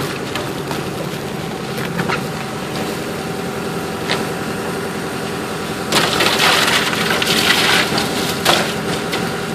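Excavator's diesel engine idling steadily. About six seconds in, a loud rough crunching noise lasting two to three seconds rises over it.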